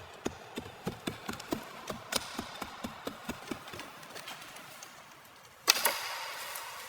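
A hand tool chopping dead wood: quick light knocks, about three a second, that fade out, then one loud sharp crack about two-thirds of the way in.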